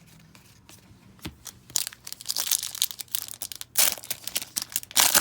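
Plastic wrapper of an Upper Deck hockey card pack being torn open and crinkled, beginning a little under two seconds in, with louder rips near the end.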